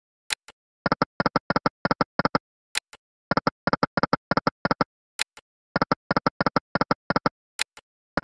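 Electronic sound effects of the EGT Lucky & Wild video slot game, spin after spin: a short faint click, then a quick run of about nine beeps. The pattern repeats three times, about every two and a half seconds.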